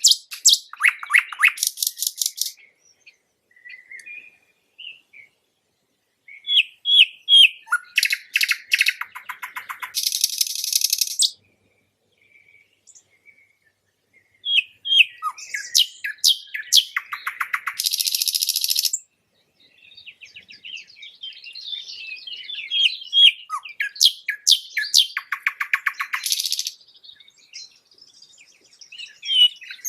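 Nightingale singing: four separate song phrases with pauses of a few seconds between them, each a run of quick, high, repeated notes, several ending in a fast buzzing trill.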